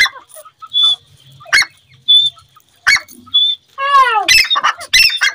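Grey francolin calling from a cage: sharp, loud call notes about every second and a half, each followed by a short high whistle. About four seconds in they break into a fast run of falling notes.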